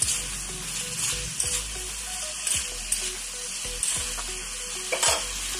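Chopped raw papaya, potato and beans sizzling steadily in hot oil in a karahi, with several short scrapes as a spatula stirs them through the pan.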